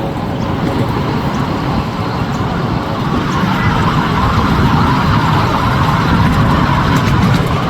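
Steady rumble and rattle of a miniature ride-on train running, growing a little louder about halfway through.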